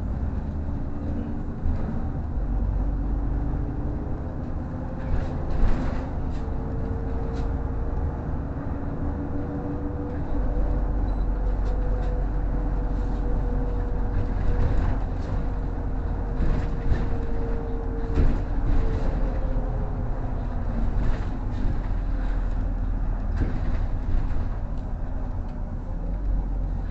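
City bus heard from inside the cabin while driving: a steady low engine and road rumble with scattered rattles and knocks. A thin whine rises gently and falls back through the middle.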